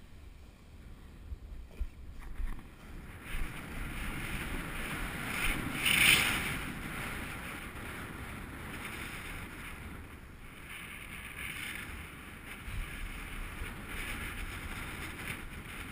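Snowboard sliding and carving over snow, a steady hiss of the board on the snow with wind buffeting the microphone, and a louder scrape about six seconds in.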